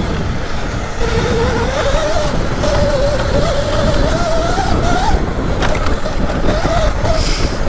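Sur Ron electric dirt bike's motor whining as it is ridden off-road, the pitch wavering up and down with the throttle, over a steady low rumble of wind on the microphone.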